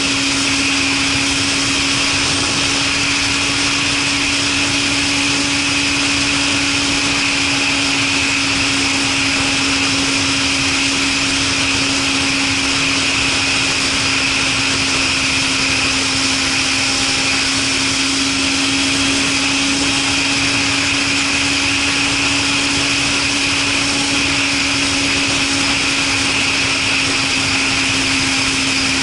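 Suzuki Katana motorcycle with a Super Combat aftermarket exhaust cruising at a steady speed, its engine note holding one even pitch throughout, mixed with a constant rush of wind and road noise.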